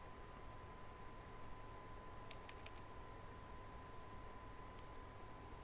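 Faint, scattered clicks of a computer mouse over a low hiss, with a faint steady high whine underneath.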